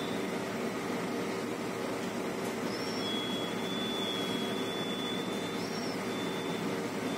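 Steady machinery hum and air rush of a container ship underway, heard from the ship. A faint thin high whine runs through it, with two short high chirps about three seconds apart.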